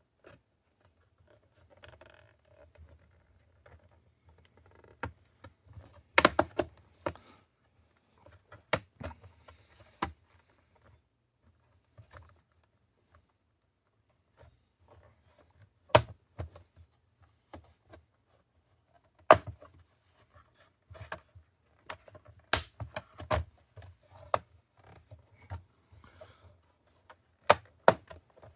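Plastic laptop case being pried open with a plastic pry tool: irregular sharp clicks and snaps as the case's plastic clips release, with several loud snaps and softer scraping and handling in between.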